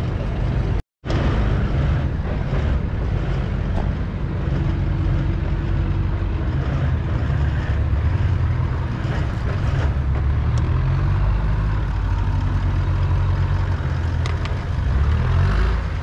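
Off-road four-wheel-drive vehicle's engine running steadily while it drives slowly along a dirt track, heard from inside the vehicle as a low rumble. The sound cuts out for a moment about a second in.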